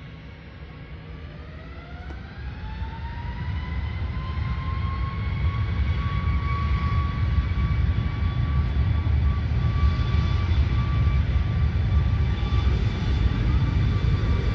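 Jet airliner engines spooling up: a whine rises in pitch over the first few seconds, then holds steady over a loud rumble as the engines reach high power.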